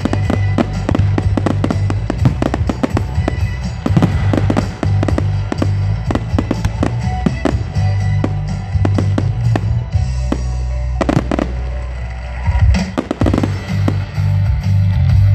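Aerial fireworks bursting and crackling in rapid succession, many pops a second, with a few louder bangs near the end. Music with a strong bass plays underneath.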